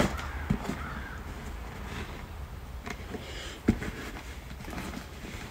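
Quiet handling noise from a Louis Vuitton Keepall 55 monogram-canvas duffel bag being lifted and turned: soft rustling with a few light knocks, over a low steady hum.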